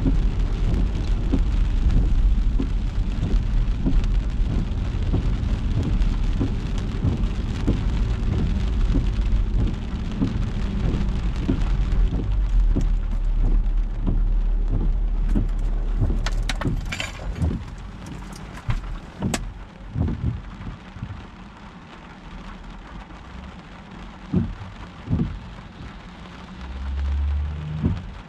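Rain pattering on a car with the low rumble of driving underneath, dotted with sharp drop taps. About seventeen seconds in the rumble falls away, leaving a quieter patter with scattered taps.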